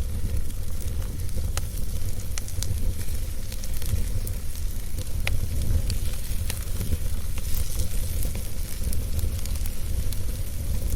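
Fire crackling in a fireplace: a steady low rumble and hiss with scattered sharp pops and snaps at irregular moments.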